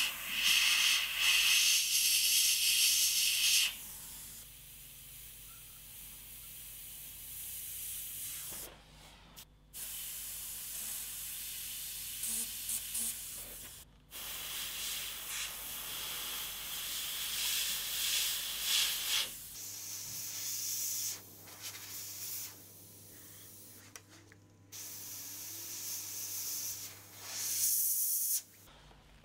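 An airbrush spraying paint in hissing bursts a few seconds long that start and stop; the first, about three seconds long, is the loudest.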